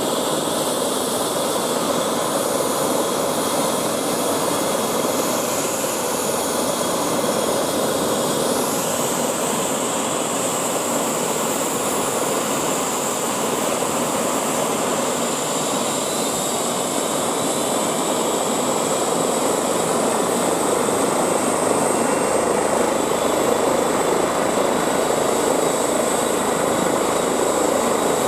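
Airbus H135 (Eurocopter EC135) twin-turbine helicopter running on the ground with its main rotor turning: steady turbine whine over rotor noise. The whine rises in pitch about eight seconds in, and the sound grows a little louder near the end.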